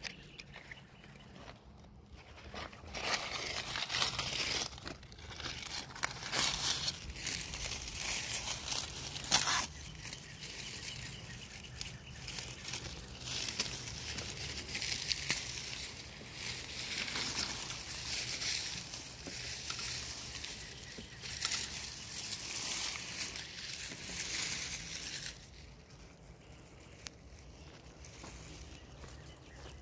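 Sugar snap pea vines being pulled up and handled: irregular rustling, tearing and crinkling of leafy stems and dry foliage, easing off near the end.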